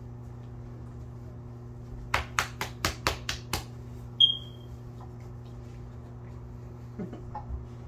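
A quick run of seven sharp hand slaps in under two seconds, then a single short high-pitched chirp that fades quickly and is the loudest sound, over a steady low hum. A few soft thumps follow near the end.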